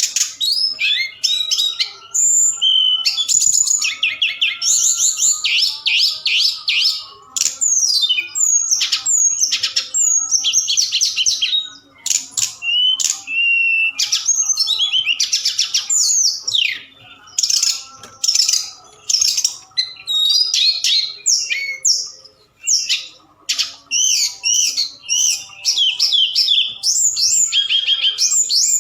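A tledekan gunung songbird singing a long, rapid run of varied chirps, trills and sweeping whistled notes, high-pitched, with only brief pauses.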